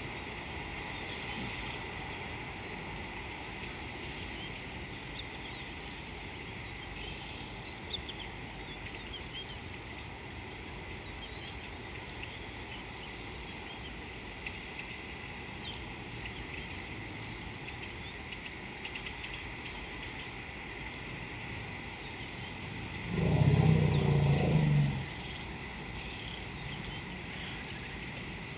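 Insects, cricket-like, chirping in an even rhythm: short high pulses about twice a second over a continuous high drone. Near the end a louder low rumbling sound lasts about two seconds.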